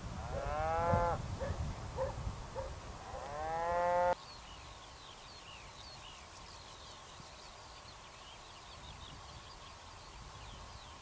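Cattle mooing: two long, drawn-out calls about three seconds apart, over a low rumble, the second cut off abruptly about four seconds in. After that, small birds chirping over a faint steady hum.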